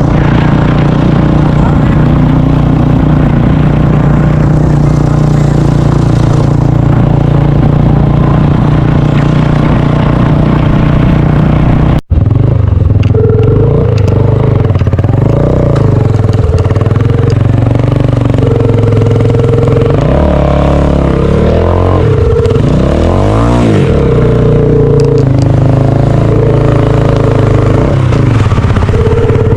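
A motor vehicle's engine running steadily, with a brief break about twelve seconds in; later the engine note rises and falls several times as the revs change.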